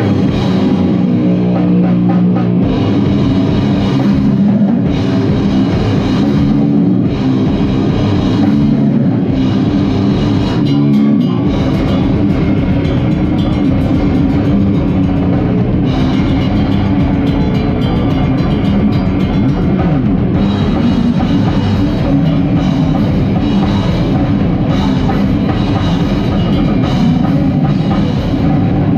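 Gore grind band playing loud, dense, distorted metal on guitar, bass and drum kit.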